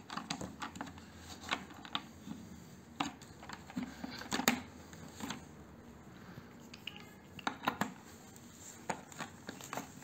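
Irregular plastic clicks and knocks as small caster wheels are handled and pushed into the sockets of a water-filter vacuum cleaner's plastic base.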